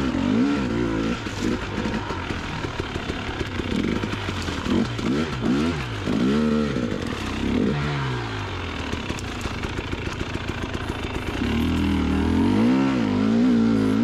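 Enduro dirt bike's engine revving up and down as it is ridden along a trail, its pitch rising and falling with each opening and closing of the throttle. The revs are loudest and highest near the end.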